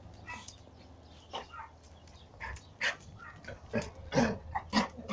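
Dog straining on a leash toward a cat, giving a few short barks, the loudest two near the end.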